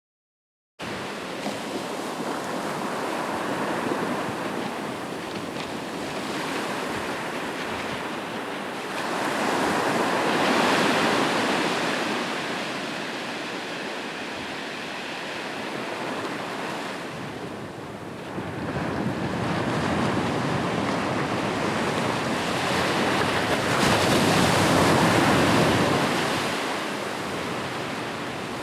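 Ocean surf: waves breaking and washing in a continuous rush of noise that starts just under a second in, swelling louder about a third of the way through and again near the end as bigger waves come in.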